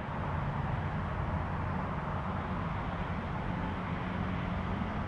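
Steady running rumble of a moving commuter train, heard from inside the carriage, with a low hum under it.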